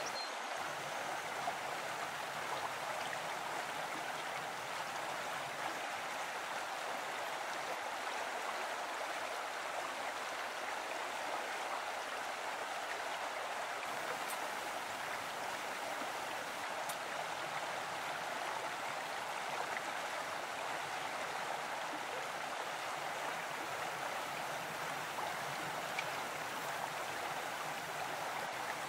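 Stream water flowing steadily, an even, unbroken rush of water.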